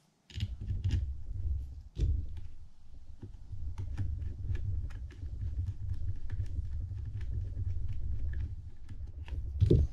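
Hands working on a Penn International II 50T fishing reel while a small screw is fitted: a low rubbing rumble of handling with many light clicks and ticks, and a sharper click about two seconds in and again near the end.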